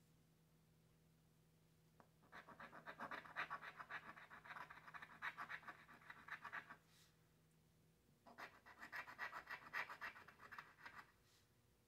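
Scratch-off lottery ticket being scratched, the coating rubbed away in quick rasping strokes. It comes in two spells of a few seconds each, with short pauses before, between and after them.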